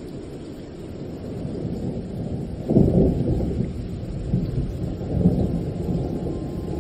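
Thunder rumbling over steady rain, with a loud rolling clap about three seconds in and a smaller one near five seconds.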